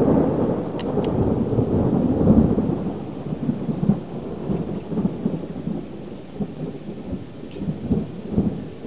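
Thunder: a rolling rumble bursts in suddenly, builds for a couple of seconds, then slowly fades away.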